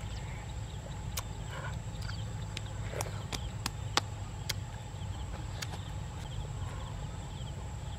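Watermelon being bitten and chewed: irregular crisp clicks and crunches, thickest about three to four and a half seconds in, over a steady low rumble of wind on the microphone.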